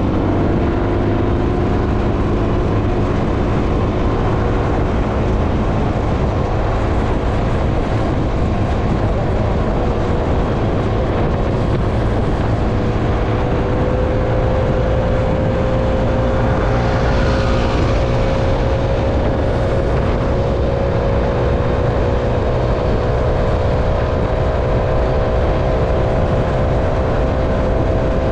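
A moving road vehicle heard while travelling: steady engine and road rumble with a whine whose pitch creeps slowly upward in the second half, and a brief rushing swell about two-thirds of the way through.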